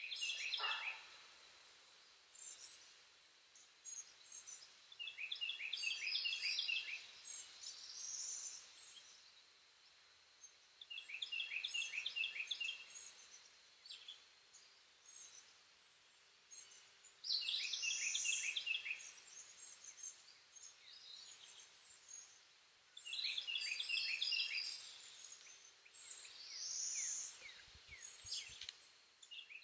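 A songbird singing short phrases of quick high notes, repeated every few seconds, some phrases ending in a rising sweep, over a faint steady hum.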